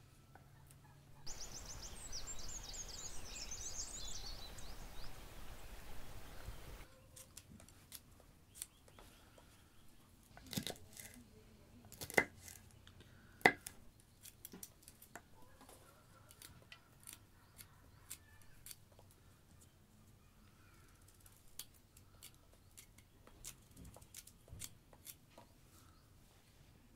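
Small knife cutting into a raw radish: a run of short crisp clicks and snips, with a few sharper knocks in the middle. Near the start comes a few seconds of high chirping over a steady hiss.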